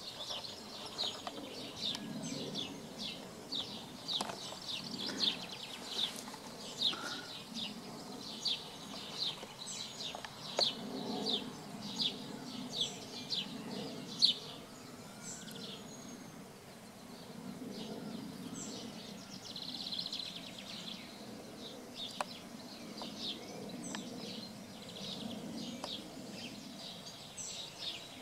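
A bird calling in a quick, regular series of short, high chirps, about one and a half a second, which thin out to sparser, fainter calls about halfway through. A low hum comes and goes underneath.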